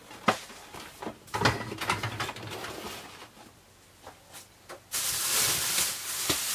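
Toy packaging being handled: a few light knocks and rustles, then about five seconds in a plastic bag starts crinkling loudly and steadily.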